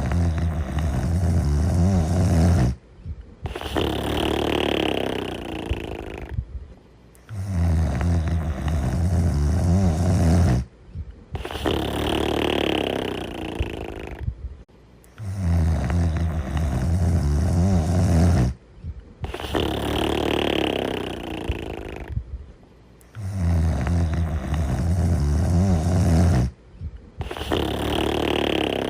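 Steady, regular snoring in deep sleep, about one breath every eight seconds: each breath is a loud, low, rasping snore of about three seconds, then after a brief pause a quieter, breathier sound of about the same length. Four such breaths.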